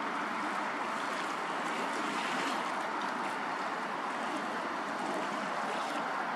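Steady rushing wash of waves on open water, even and unbroken.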